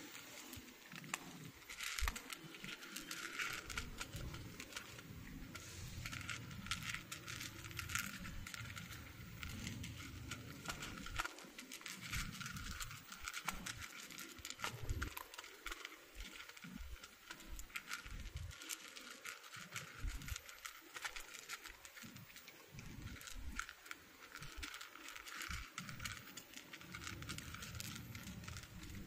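Two cats chewing dry kibble close up: irregular crunching clicks as they eat.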